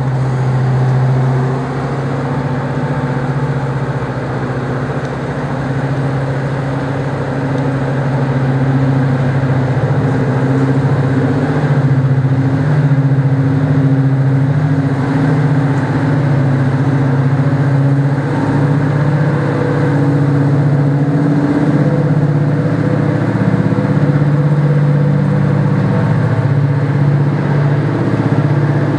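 Class 55 Deltic diesel-electric locomotive's twin Napier Deltic two-stroke engines running under power as it pulls away with a train, a steady deep drone that grows louder over the first dozen seconds as the locomotive approaches.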